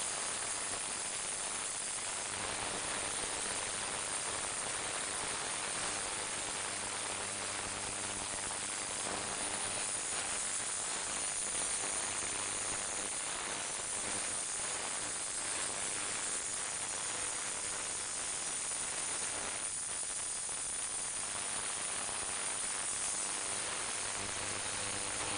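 Ultrasonic cleaner running: a steady hiss and buzz of cavitation in the water-filled tank.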